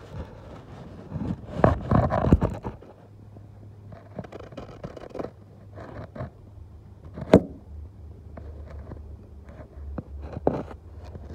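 Handling noise as a phone camera is worked around inside a Cessna 150 horizontal stabilizer: rubbing, scraping and knocking, loudest about two seconds in, with a single sharp knock a little past the middle. A steady low hum runs underneath.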